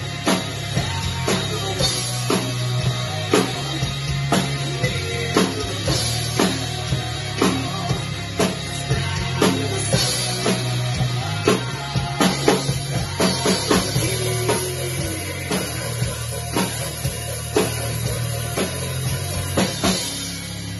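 Drum kit played in a rock beat, with a steady run of bass drum and snare hits and cymbal accents over a rock backing track.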